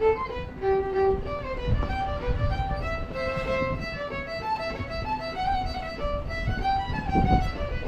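Background fiddle music: a brisk tune of quick, short notes.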